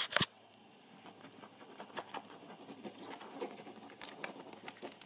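Two sharp knocks at the start, then light, irregular clicking and scratching: a cat's paws and claws working on the plastic PVC pipe frame of a cat bed.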